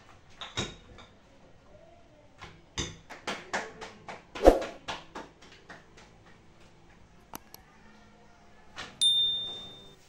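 A run of knocks and clatters of kitchen utensils and dishes on a countertop, loudest about four and a half seconds in. Near the end, a subscribe-button sound effect: sharp clicks, then a bell ding that rings for about a second.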